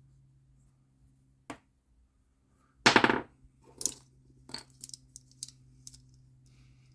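Clicks and knocks of reloaded .410 shotgun shells and hand-loading tools being handled on a bench. There is one sharp click, then a loud brief rattle about three seconds in, followed by a string of lighter clicks.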